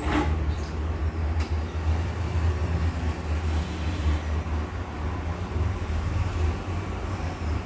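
A steady low rumble of background noise with a faint hiss over it, and a light click at the very start.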